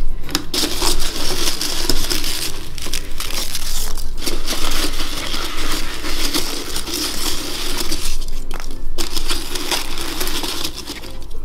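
Hands digging through a clear plastic container packed with soft foam filler cubes, a continuous rustling and crunching of foam, with pieces rubbing against the plastic wall.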